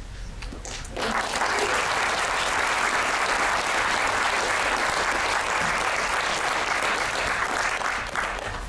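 Audience applauding. A few scattered claps build into full, steady applause about a second in, which begins to die away near the end.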